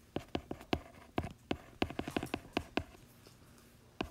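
Stylus tip clicking on a tablet's glass screen during handwriting: a quick, irregular run of sharp ticks that pauses for about a second near the end, then one more tick.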